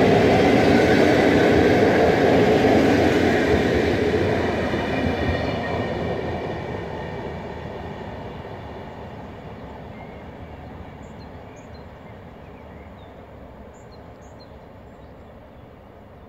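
A train running on the track and moving away, its rolling rumble steady for a few seconds and then fading gradually over about ten seconds. Faint bird chirps come through in the second half as the train dies away.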